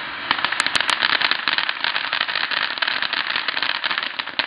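Consumer ground fountain firework spraying sparks with a dense, rapid crackling of small sharp pops. The crackling starts a fraction of a second in and cuts off abruptly near the end.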